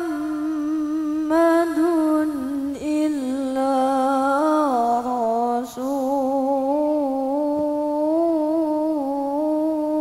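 A single voice chanting Quranic recitation in a melodic style. It draws out one long ornamented line of held, wavering notes that step down in pitch about halfway through.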